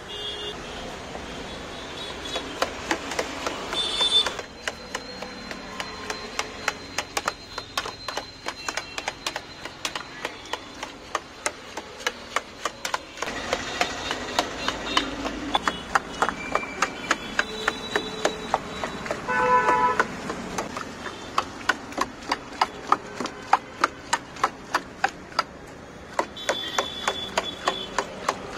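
A long metal blade repeatedly chopping and pounding watermelon flesh into pulp in a stainless steel pot: sharp knocks, a few a second, throughout. Brief vehicle horn honks sound about 4 seconds in, near the middle and near the end.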